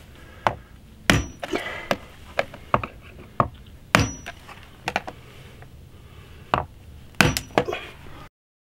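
Claw hammer tapping the butt of a Phillips screwdriver to punch pilot holes in a dog house's metal wall panel: about a dozen sharp, irregularly spaced taps, some with a short high metallic ring.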